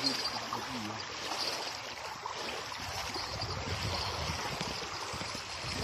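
Small waves lapping and washing against a grassy lake shore, with wind on the microphone adding a low rumble from about the middle on.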